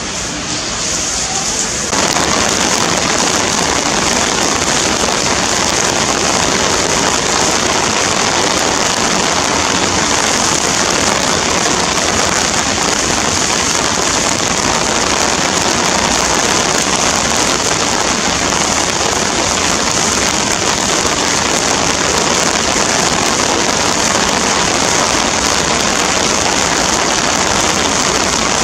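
Heavy torrential rain pouring down in a thunderstorm: a loud, steady hiss that jumps louder about two seconds in.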